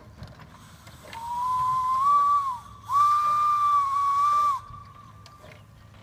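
Steam whistle on a replica of William Hedley's 1813 Wylam locomotive sounding two long blasts, starting about a second in, each a steady high tone that rises slightly at the start, with hissing steam behind it. A faint trace of the tone lingers briefly after the second blast.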